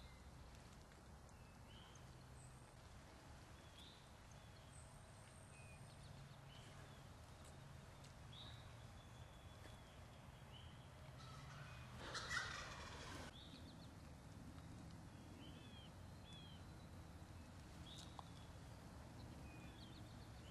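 Wild turkey gobbling once, a rapid rattling call about twelve seconds in that stands out from an otherwise near-quiet field. Faint short songbird chirps are scattered around it.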